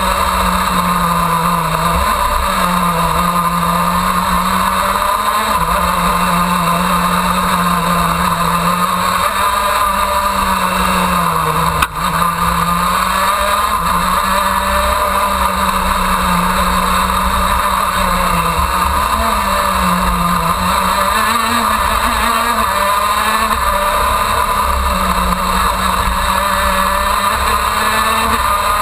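KZ2 shifter kart's 125 cc two-stroke engine running hard at racing speed, heard from on board. Its pitch climbs and drops sharply again and again with gear changes and corners, and there is a brief click about twelve seconds in.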